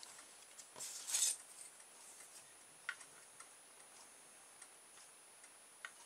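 Faint handling sounds: scattered, irregular light clicks and taps as a small plastic USB vacuum cleaner and a steel ruler are handled, with a brief scraping rustle about a second in.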